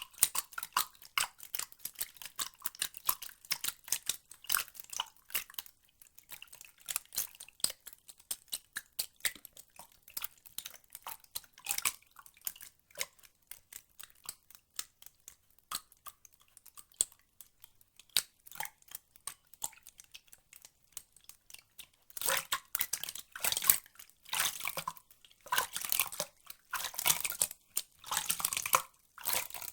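Close-miked water sound effect: irregular wet clicks and drips in quick succession, thinning out in the middle and growing louder and busier in bursts near the end.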